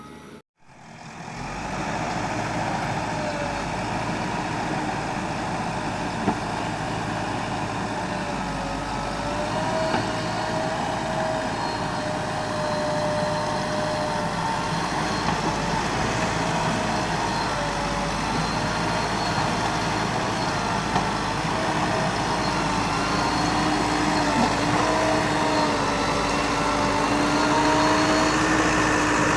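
Diesel engine of a JCB earthmoving machine running steadily under work, with a faint whine that wavers slightly in pitch. It follows a brief break to silence about half a second in.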